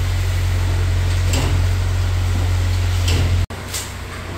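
Steady low machine hum with a few faint scraping strokes over it. The sound cuts out abruptly about three and a half seconds in and comes back quieter.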